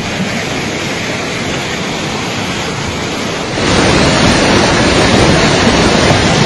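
Fast muddy floodwater rushing down a town street, a steady loud noise of torrent water mixed with wind on the microphone. It gets louder about three and a half seconds in.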